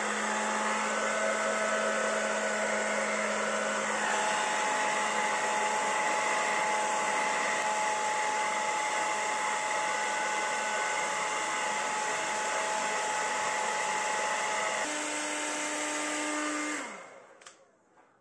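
Zimmer hand-held hair dryer running steadily, its motor whine and rushing air aimed at the tin snips' handles. Its motor hum steps up in pitch about fifteen seconds in, then it is switched off near the end and winds down.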